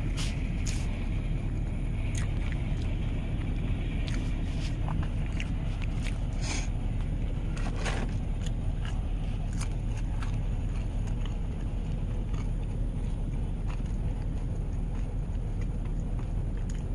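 Steady low rumble inside a parked car's cabin, with a scattering of short sharp clicks and crackles, most of them in the first half.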